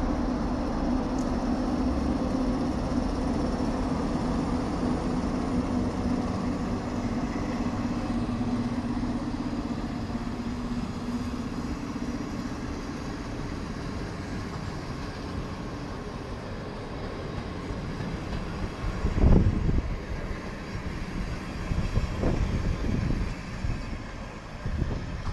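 Electric locomotive hauling a train of passenger coaches, running with a steady hum that fades as the train draws away. Near the end come a few heavy low knocks from the passing coaches.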